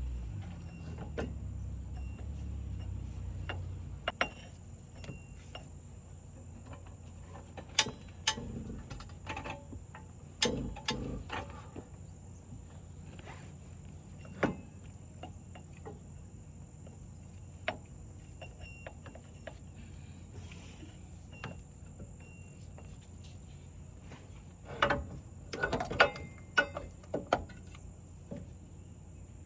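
Scattered sharp clicks and knocks of hand tools on car parts, bunched into two busy spells, over a steady high-pitched chirring. A low rumble runs under the first few seconds and then stops.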